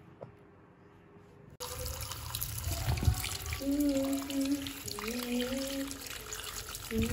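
Kitchen tap running into a stainless steel sink while cut squash pieces are rinsed by hand in a colander. The water starts suddenly about a second and a half in, after near-quiet.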